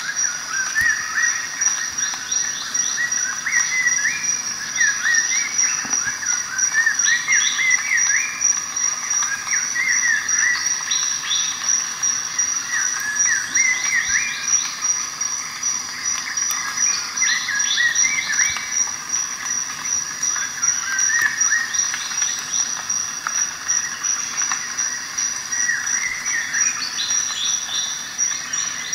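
Nature ambience: a continuous high-pitched insect trill, like a cricket, with birds chirping in short phrases every second or two.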